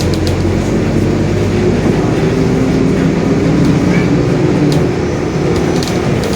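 Mercedes-Benz OF-1721 Bluetec 5 city bus under way: diesel engine running steadily with the drivetrain droning and the differential growling. A few short rattles come near the end.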